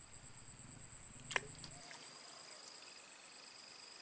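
Steady high-pitched insect trilling, a fast pulsing buzz, with a second, lower trill joining about two seconds in. A single sharp click about a second and a half in.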